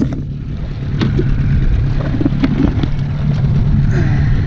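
Boat's outboard motor running steadily with an even low hum, with a few short knocks from handling in the boat.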